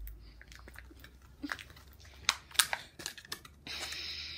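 Small plastic toy wrapping crinkling and crackling in short clicks as tiny pieces are pulled out of it by hand, with a longer steady rustle of the plastic near the end.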